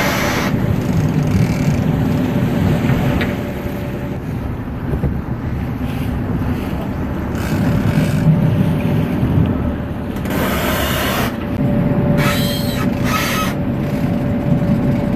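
Fishing boat's engine running steadily underway, with wind on the microphone and a few short rushes of noise over the drone, near the start and again from about ten seconds in.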